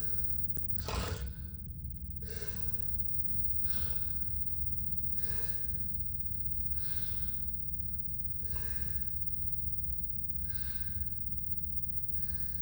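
A person breathing heavily and noisily, about eight loud, airy breaths evenly spaced roughly a second and a half apart, over a steady low hum.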